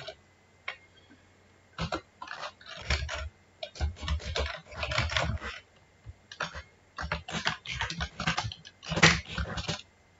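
Typing on a computer keyboard: quick runs of keystrokes begin about two seconds in, with the loudest stroke near the end.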